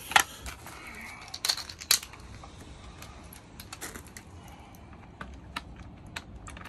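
Scattered sharp clicks and knocks of handling, as a cordless impact driver and the metal parts of a carpet stretcher are picked up and set in place, the loudest within the first two seconds and fainter ticks later.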